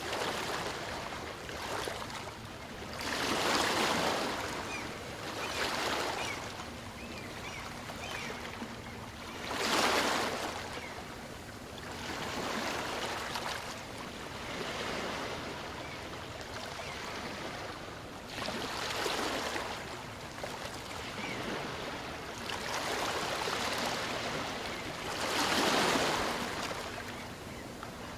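Small waves of a calm sea breaking and washing up on a beach, each one a rush of water that swells and fades. The surges come every few seconds, the strongest about four seconds in, about ten seconds in and near the end.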